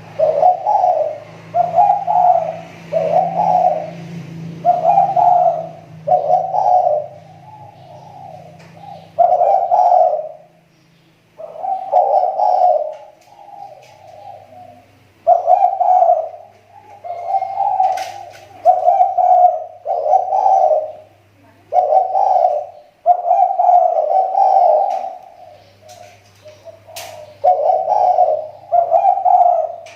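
Spotted dove (tekukur) cooing over and over in a steady series of short, low coos, roughly one every second or two with brief pauses. It is a decoy (pikat) bird whose call is improving again after having dropped off.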